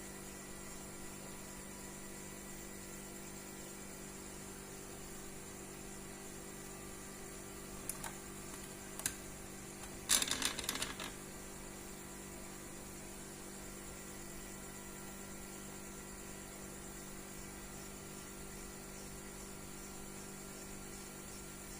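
Steady low hum with a few sharp clicks about eight and nine seconds in, then a brief clatter of clicks about ten seconds in.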